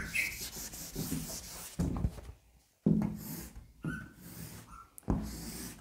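A cloth blackboard duster rubbing the board, then chalk scraping across the blackboard as straight lines are drawn, with a few short knocks of chalk and hand against the board.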